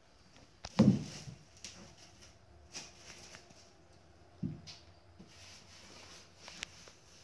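Footsteps and handling noise on a concrete floor: a dull thump about a second in is the loudest, a smaller one comes about halfway through, and soft scuffs and clicks fall in between.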